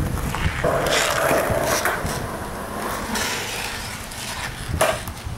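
Skateboard wheels rolling and grinding over a rough asphalt parking lot, with one sharp knock from the board near the end.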